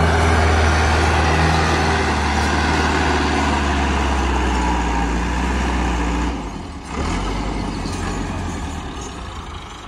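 Diesel farm tractor's engine running hard under load as it drags a trolley loaded with sand through deep mud, a loud steady low hum. About six seconds in the engine note drops and the sound gets quieter and fades toward the end.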